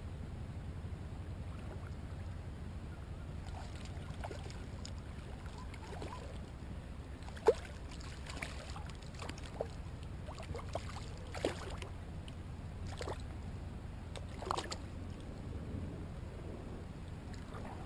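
Small hooked sea bass splashing at the water's surface as it is reeled in and grabbed by hand. The splashes come irregularly in the second half, the sharpest about seven and a half seconds in, over a steady low wind rumble on the microphone.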